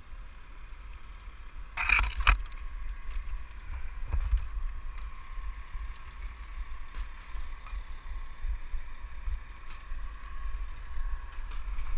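Wind rumbling on a helmet-camera microphone high up on a crane hook, over a faint steady machine hum. There is a short burst of crackling and rattling about two seconds in and a smaller one about four seconds in, as of dry branches or rigging brushing against the camera.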